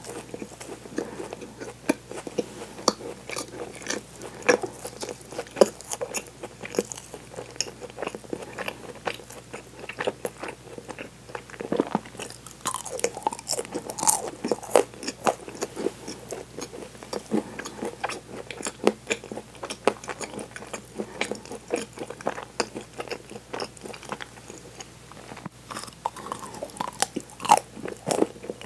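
Close-miked chewing of crisp chocolate pieces from a chocolate-coated bread ring: many small, irregular crunches and mouth sounds.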